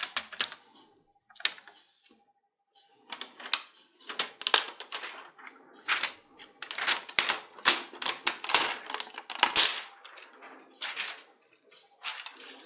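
Clear protective plastic film being peeled off a graphics card's backplate, crackling in quick uneven runs of sharp clicks that are busiest in the middle.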